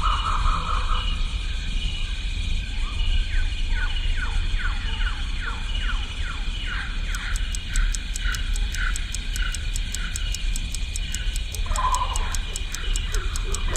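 Layered film sound design: a steady low hum under high held tones, with a run of quick falling chirps and, from about halfway, a fast ticking like a clock, about four or five ticks a second.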